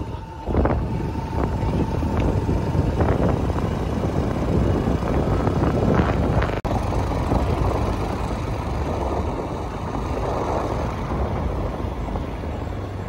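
Riding on a motorcycle: wind rushing over the microphone over the bike's engine and tyre noise, with a faint steady whine in the first few seconds.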